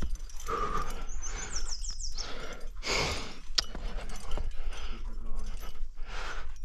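A climber breathing hard in repeated noisy bursts from the strain of a steep, pumpy sport climb, with a sharp click a little past halfway.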